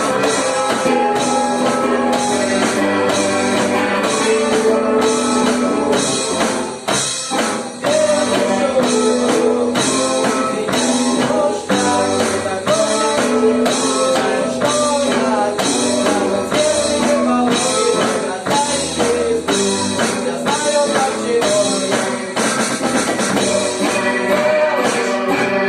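Rock band playing the song with a steady drum beat; the music thins briefly about seven seconds in.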